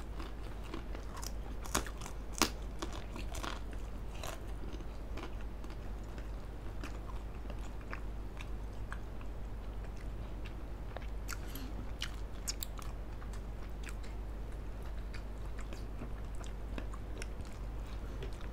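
Close-up chewing and biting of food, with sharp crunches from crisp crackers (kerupuk), busiest in the first few seconds and again about twelve seconds in. A steady low hum runs underneath.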